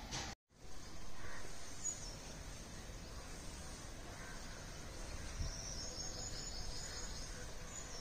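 Outdoor ambient noise, a steady hiss with faint high chirping in the second half. The sound cuts out completely for an instant about half a second in.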